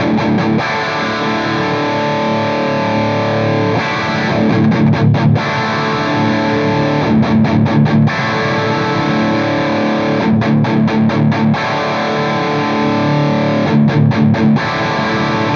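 Electric guitar played through a Soldano SLO overdrive pedal with high-gain distortion and its deep switch off. Ringing distorted chords alternate four times with short bursts of fast palm-muted chugging.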